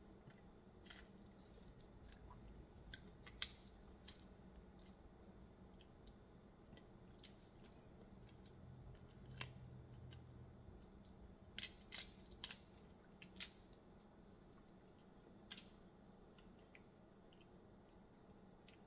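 Faint eating sounds: scattered crackles and clicks of shrimp shells being cracked and peeled by hand, with chewing, and a quick run of sharper clicks about two-thirds of the way through.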